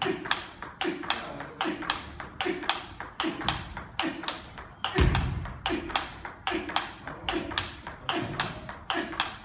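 Table tennis rally: the ball clicking off the paddles and bouncing on the table in a fast, steady rhythm. A heavier thump comes about five seconds in.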